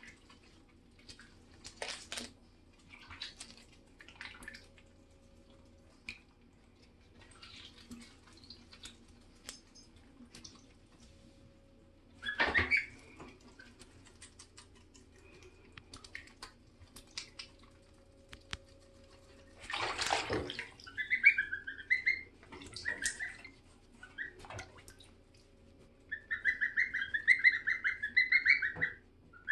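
Goslings dabbling for romaine in bathwater: scattered splashes and sloshing, with high, whistling peeps in short runs and a long run of rapid peeps near the end.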